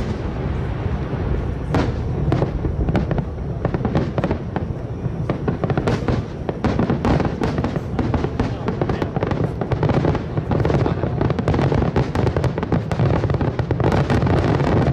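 Fireworks display: a dense, rapid crackle of many small sharp bursts over a steady low rumble, thickest in the middle and again near the end.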